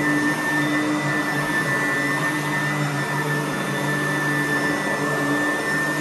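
Red Sanitaire commercial upright vacuum cleaner running steadily as it is pushed over carpet: the rush of air under a steady high motor whine.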